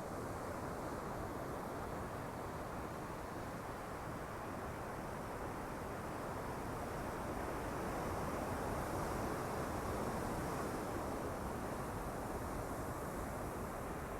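Sea waves rushing on the shore, a steady wash that swells louder a little past halfway and then eases.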